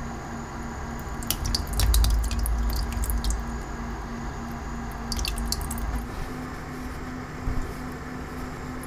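Thick, watery curdled yogurt being poured out of a rice-cooker inner pot onto a cloth, with wet dripping and squishing. Clusters of small wet clicks come about a second in and again about five seconds in. It is a failed yogurt batch that has separated with too much whey.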